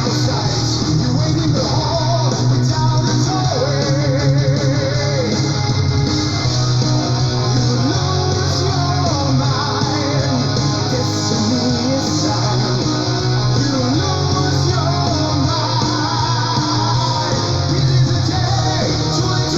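Melodic metal song playing at a steady loudness: electric guitars over a heavy bass line, with a wavering melodic line on top.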